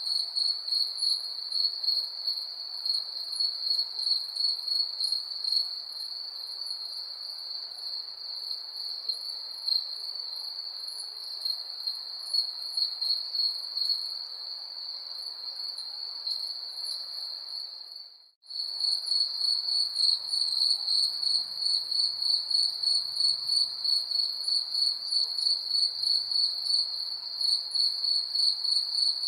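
Crickets chirping in a steady, fast-pulsing high trill over a faint hiss. About eighteen seconds in the sound cuts out for a moment, then comes back a little louder.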